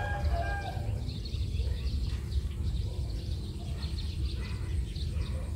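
Outdoor rural ambience: small birds chirping over a steady low rumble, with a rooster's crow trailing off about a second in.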